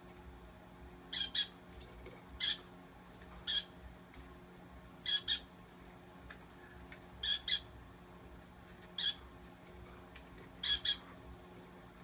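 Pineapple conure (a colour form of the green-cheeked conure) squawking in short, sharp calls, singly or in quick pairs, seven times, a call every second or two.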